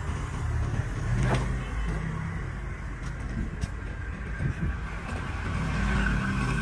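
Low, steady rumble of a running motor, growing louder near the end, with a sharp click about a second in.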